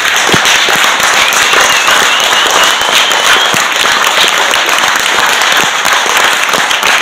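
Audience applauding: a loud, dense round of clapping from many hands.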